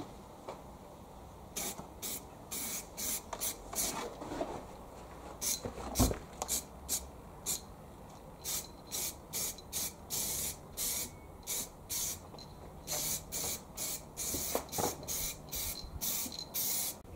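Aerosol spray-paint can sprayed in many short bursts, about two a second, each a brief hiss; a single knock about six seconds in.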